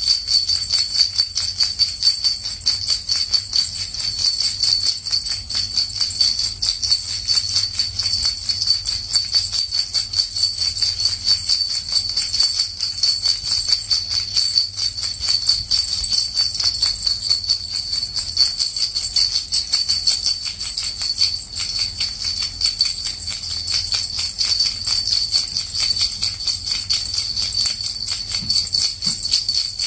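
Small bells shaken gently in a continuous fast jingle, with one bright ringing pitch sitting over the rattle.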